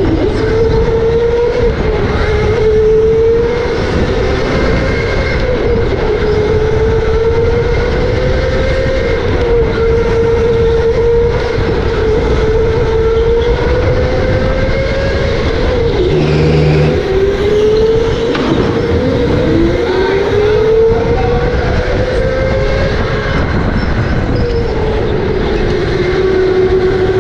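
Electric go-kart motor whining steadily at full speed over a low rumble, its pitch sagging through the corners and climbing again under acceleration, with a sharp drop about sixteen seconds in before it rises back up.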